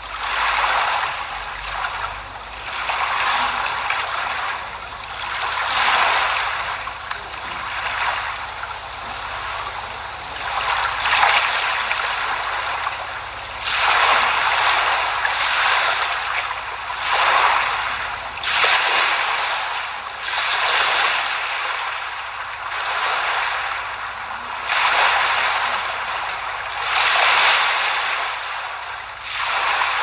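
Sea waves breaking and washing on a beach, the surf swelling and easing off every couple of seconds.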